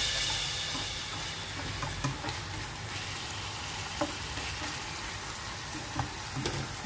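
Chicken, onion and tomato sizzling in a nonstick frying pan while a plastic slotted spatula stirs and scrapes through them, with a few sharp clicks of the spatula against the pan.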